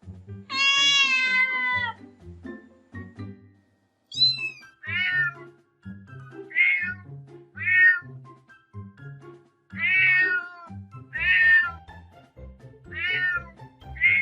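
Domestic cat meowing over and over, about eight separate meows. The first is long, and a short, very high one comes about four seconds in; most of them fall in pitch at the end. Background music plays underneath.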